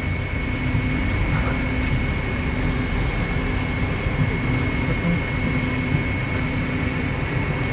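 Steady hum and low rumble of a Hong Kong wooden-bodied double-deck tram standing at a stop, heard from on board, with a constant high whine and city street traffic around it.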